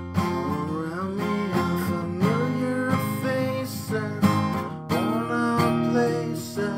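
A man singing to his own strummed steel-string acoustic guitar, played with a capo.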